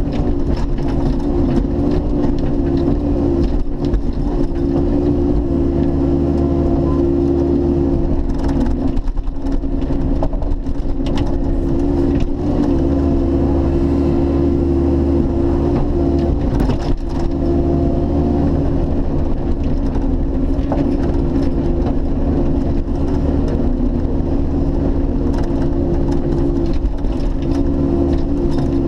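Bobcat E50 mini excavator's diesel engine running steadily under hydraulic load, heard from the operator's seat, as the ripper tooth works through stumps and roots. A few sharp knocks stand out over the engine now and then.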